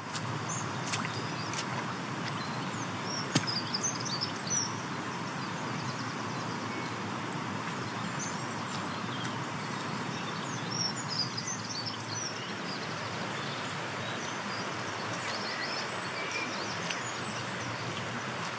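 Outdoor ambience: a steady rushing background noise with small birds chirping in short bursts, twice, about four seconds in and again about ten seconds in.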